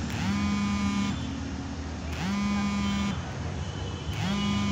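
A horn-like warning tone sounding three times, one every two seconds, each note swooping up in pitch and then holding for just under a second, over steady street traffic.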